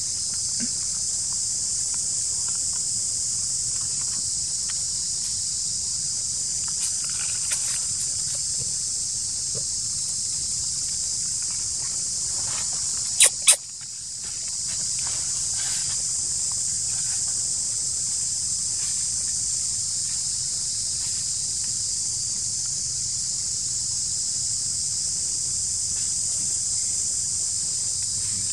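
Steady high-pitched drone of a daytime insect chorus in tropical forest, unbroken throughout. About halfway through, two sharp clicks come close together, followed by a brief drop in the background.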